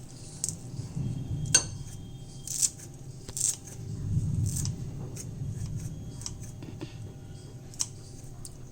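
A utensil clinking and tapping against kitchen dishware, about six sharp clicks spread irregularly, over a low steady hum.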